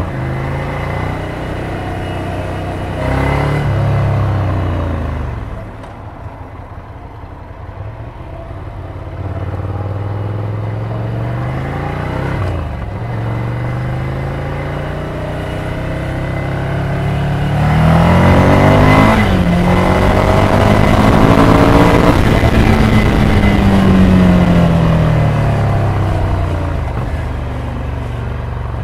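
Ducati Scrambler 800's air-cooled L-twin through a Termignoni exhaust while riding: the revs climb through several gear changes, with a quieter stretch of low running about a quarter of the way in. Near the end the engine pitch falls off on a closed throttle. The exhaust note is rather quiet for an aftermarket system.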